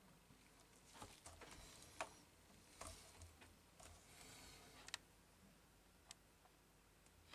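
Faint, scattered clicks and soft rustling from gloved hands handling a laptop's plastic case and keyboard.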